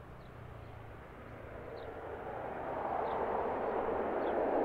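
Jet aircraft engine noise, a rushing sound that grows steadily louder as the aircraft comes in on its arrival.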